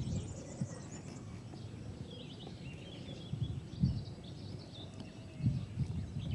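Outdoor ambience: a low, uneven rumble with faint bird chirps from about two to four seconds in.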